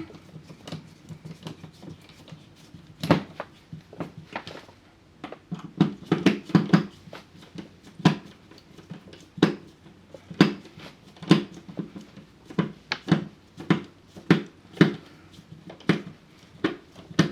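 Hand screwdriver driving an electrical outlet's mounting screw into the wall box: a series of irregular clicks and small knocks, about one or two a second.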